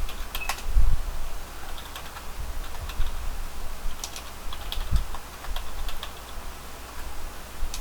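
Typing on a computer keyboard: irregular keystrokes, with a few heavier thuds among them, as switch configuration commands are entered.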